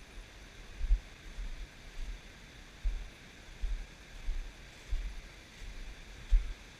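Steady rush of a creek's flowing water, broken by irregular low thumps on the microphone about once a second.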